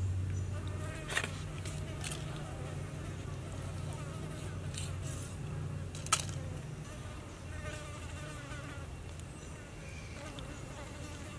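A fly buzzing close by, its pitch wandering up and down as it moves, dying away near the end. Two sharp clicks, about a second in and about six seconds in.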